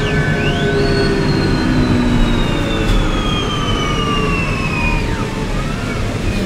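Engine of a 1998 New Flyer C40LF hydrogen/CNG hybrid bus, a Cummins C Gas Plus modified to burn hydrogen with natural gas, heard from inside the cabin. A steady low rumble runs under a high whine that rises quickly about a second in, slides slowly down over the next few seconds, then drops away.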